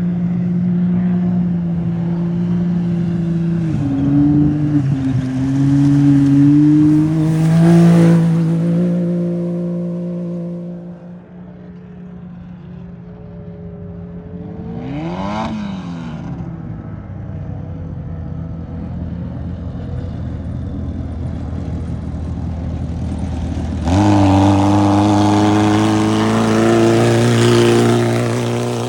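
Off-road race vehicle engines revving and changing pitch. About halfway through, one passes close at speed with a rising-then-falling pitch. A louder engine cuts in suddenly near the end.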